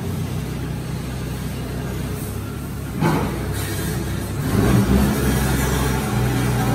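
Doosan forklift engine running, then revving harder as the truck drives off carrying a long steel pipe, growing louder about four and a half seconds in. A single knock sounds about three seconds in.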